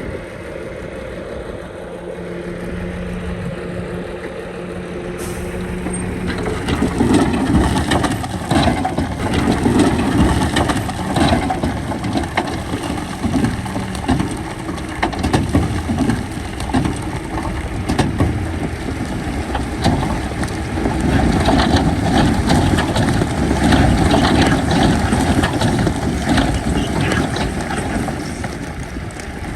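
Heavy diesel earthmoving machinery. The engine runs steadily for several seconds, then about seven seconds in it grows louder and rougher, with a continual irregular clatter and crunching as it works.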